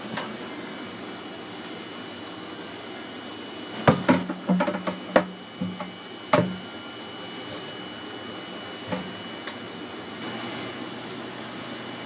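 A cluster of knocks and bumps of PVC pipe against the plastic tank as the pipe is worked through a Uniseal rubber seal in the tank wall, bunched between about four and six and a half seconds in, some with a short low ring, then a couple of lighter clicks. A steady background hum runs under it all.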